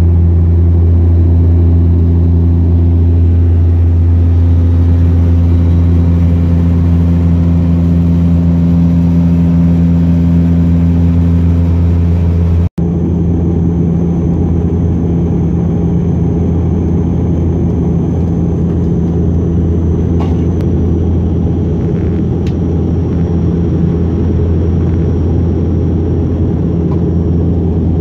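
Steady cabin drone of a Dash 8 Q400's turboprops: a loud low propeller hum with evenly spaced overtones. About halfway through it drops out for an instant and resumes much the same, now with a faint high whine above it.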